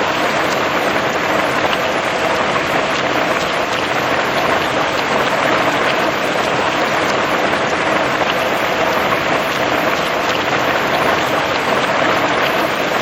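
Steady rain falling, a dense even hiss with many fine drop ticks.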